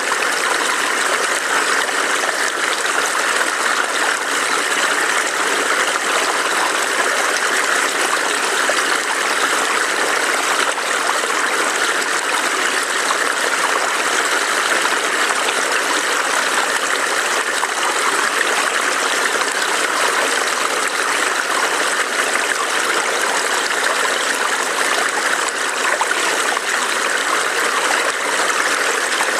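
A small forest stream burbling over rocks, a steady rush of running water.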